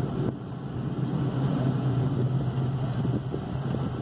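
Car engine and road noise heard from inside the cabin: a steady low hum over an even rush of noise as the car moves slowly in traffic.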